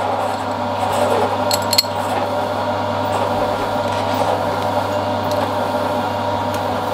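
A steady low hum with several fixed tones, with a few light clicks about a second and a half in as a moulded Turgo cup and the stainless steel runner disc are handled together.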